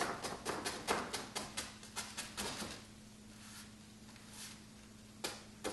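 Chinese ink brush dabbing short leaf strokes onto painting paper: a quick, uneven run of soft taps and scratchy brushing, about three a second, that eases off about halfway through, with two more strokes near the end. A faint steady low hum runs underneath.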